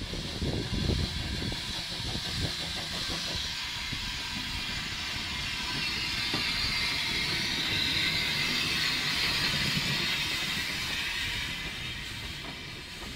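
Small steam tank locomotive drawing a carriage slowly past at close range. A few irregular exhaust beats come first, then a steady hiss of steam that grows louder as the engine comes near and fades slightly near the end.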